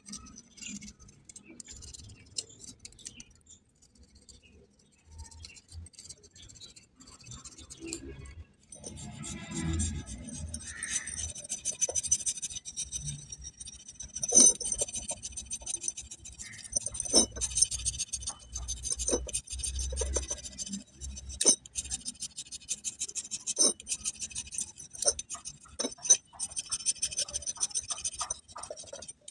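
Rust being scraped off a steel motorcycle sprocket with a flat metal blade: rapid scratching strokes of metal on metal, with sharp clicks. Faint at first, it becomes busier and louder from about eight seconds in.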